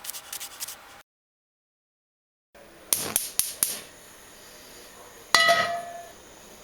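Cookware and utensils clinking and knocking, with the clips cut apart by a stretch of dead silence. There are quick clinks at the start, a run of sharp knocks about three seconds in, and one ringing metallic clang a little past five seconds.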